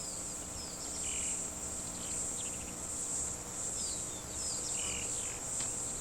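Steady high-pitched insect chorus that swells and fades, with short falling bird chirps over it.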